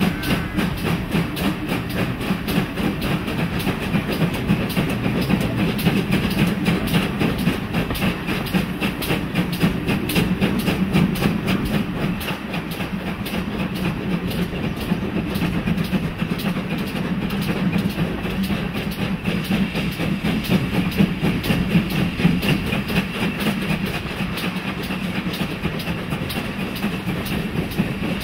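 Steam-hauled train running along the line, heard from a carriage close behind the locomotive: a fast, steady rhythmic beat with wheels clattering on the rails.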